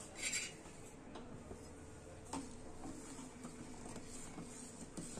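Steel ladle stirring thickening milk in a steel pot: a brief scrape near the start, then a few faint clinks and ticks of the ladle against the pot.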